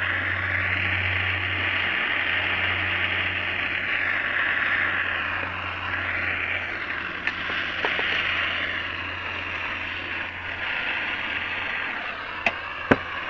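Electric heat gun running steadily: its fan blows with a hiss over a low hum while it heats the steering knuckle so the bore expands to take a frozen wheel bearing. A few sharp clicks near the end.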